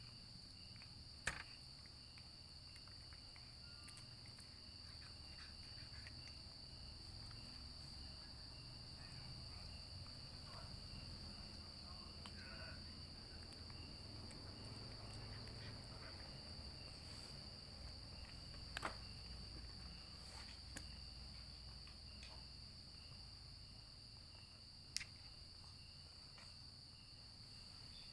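Steady, high-pitched insect chirring, like crickets, with a few short sharp clicks.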